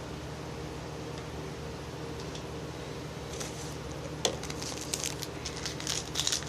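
Steady low hum in the room, then from about halfway in, crinkling and crackling of a foil trading-card pack wrapper being handled, with a sharp click just before it picks up.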